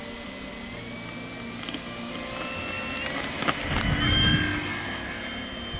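Radio-controlled Spitfire model's motor running at take-off power as the plane rolls across grass and lifts off, with a whine that steps up in pitch partway through. A short low rumble comes a little past the middle.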